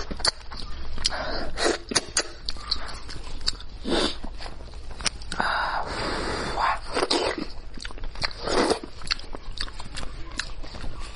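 Close-miked eating sounds from someone working through spicy sheep's head: wet chewing and sucking noises in short noisy spurts, with many small clicks throughout.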